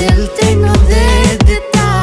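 Background pop music with a heavy, steady bass beat.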